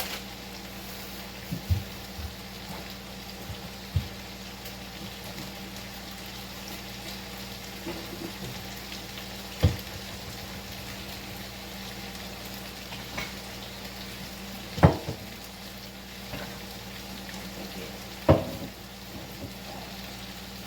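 Food sizzling steadily in a hot frying pan, with a few sharp knocks of utensils or dishes against the pan at intervals.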